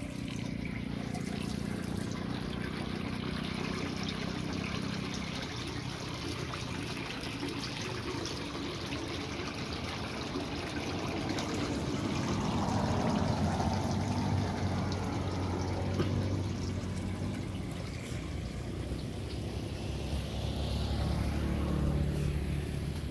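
Muddy rainwater trickling and pouring steadily through the barred openings of a concrete culvert as it drains. A low rumble joins about halfway through.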